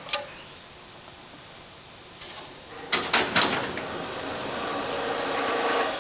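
Sliding doors of a 1950s Otis elevator being worked. There is a click right at the start and a couple of clunks about three seconds in, then a steady mechanical whir that grows slowly louder and stops at the end.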